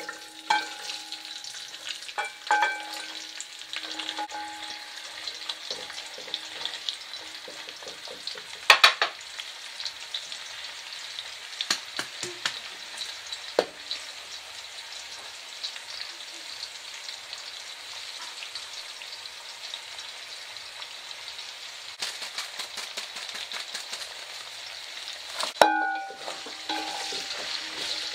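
Carrot sticks sizzling steadily in hot oil in a large pot. Scattered clinks and knocks of a bowl and spoon against the pot break in, loudest about nine seconds in and again near the end, some with a brief ring.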